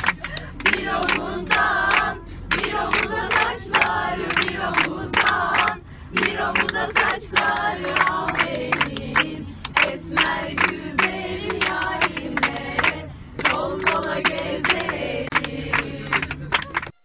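A group of teenage girls singing together and clapping in time, a steady beat of about three claps a second under the voices.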